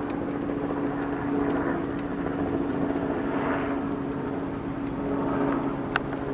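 Helicopter flying overhead, a steady engine drone.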